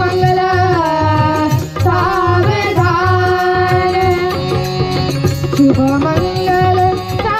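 A child singing Marathi mangalashtak wedding verses in long, held notes that slide between pitches, over music with a steady low beat.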